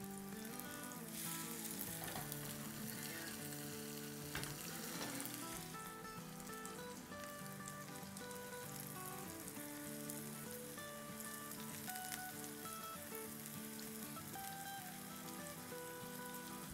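Small ground-chicken patties sizzling in shallow hot oil in a nonstick frying pan as raw patties are laid in one after another. Background music plays underneath.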